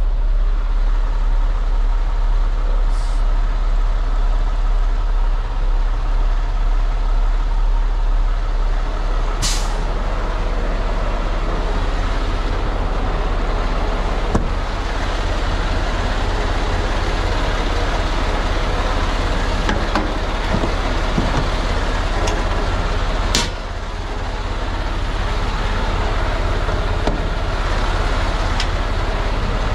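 Semi truck's diesel engine idling steadily, with two short, sharp air hisses from the truck's air system, about a third of the way in and again later.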